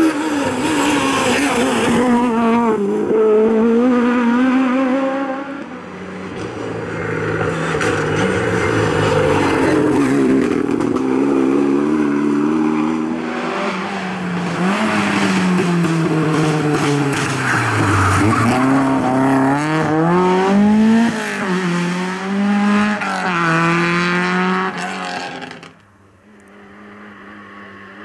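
Rally cars at full attack on a tarmac stage, led by a Peugeot 306 Maxi kit car. The engines rev hard and drop back again and again through gear changes and braking for bends. About two seconds before the end the sound falls away abruptly to a fainter, steady engine tone.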